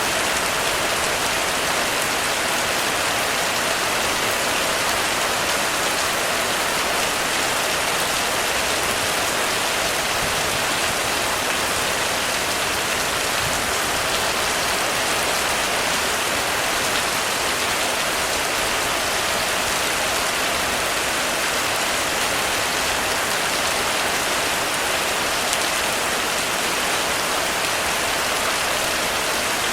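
Heavy rain falling steadily on a roof, an even hiss that holds at the same level throughout.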